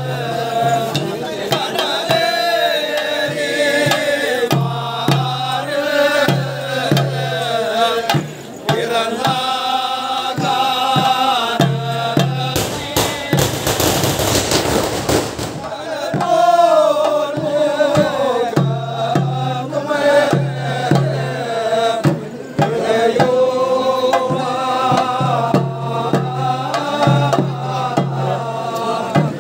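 Men chanting a Theyyam ritual song together, with drum accompaniment in a steady pulse. About halfway through, the chanting gives way to a few seconds of dense, loud percussion, then resumes.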